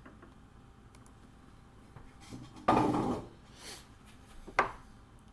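Handling noises on a workbench: a loud half-second rustle or clatter about two and a half seconds in, a softer one a second later, and a short sharp click near the end.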